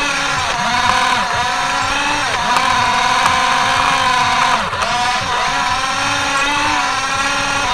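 Electric drive motor and gearbox of a Dickie-Simba RC snow groomer whining steadily as it drives, the pitch dipping briefly several times as the tracks take load.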